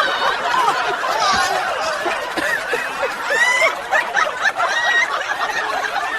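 Several people laughing and snickering at once, the voices overlapping.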